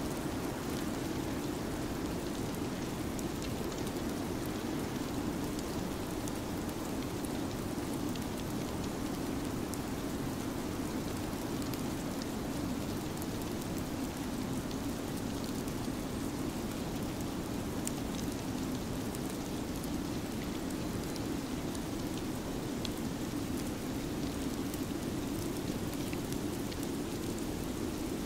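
Steady snowstorm ambience: an even rushing hiss with a deep undertone, sprinkled with faint scattered ticks.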